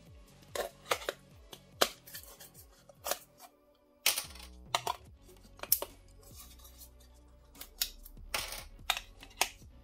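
About a dozen sharp clicks at irregular intervals: disc magnets, 25 mm across and 5 mm thick, being pulled off a stack and snapping into the pockets of a 3D printed plastic magnet holder. Faint background music runs underneath.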